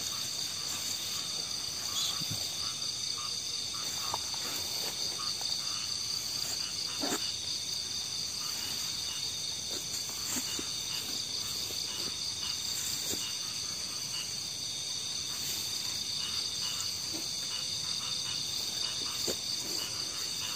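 Night chorus of crickets and other insects, a steady high-pitched trilling, with a few faint clicks scattered through it.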